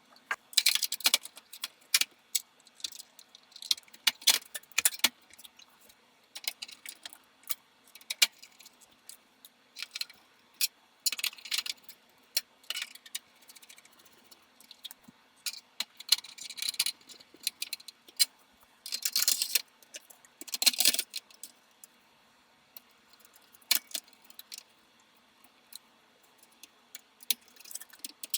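Small metal parts being handled: irregular clinks, clicks and rattles in bursts lasting a second or so, sparser after about two-thirds of the way through.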